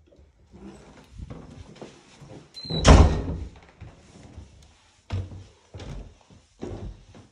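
An interior door shutting with a loud thud about three seconds in, just after a brief high squeak. This is followed by footsteps on carpeted stairs, about one step every 0.7 seconds.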